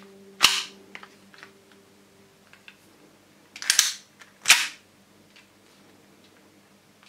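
Airsoft pistol handled: three sharp clacks, one about half a second in as the magazine is pushed home into the grip, then two close together near the middle as the slide is worked back and forward. Faint small clicks of handling come between them.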